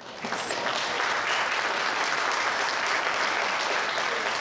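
Audience applauding, building within the first second and then holding steady.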